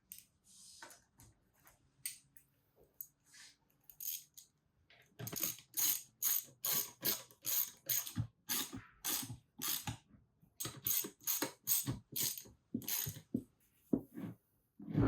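Socket ratchet clicking in a quick, even run of strokes, about two or three clicks a second, as a bolt is wound in, starting about five seconds in after a few scattered clicks.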